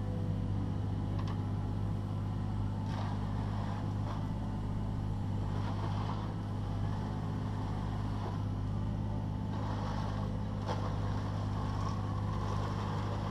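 Takeuchi TB216 mini excavator's diesel engine running steadily, with a few brief scraping noises from the bucket working the stone.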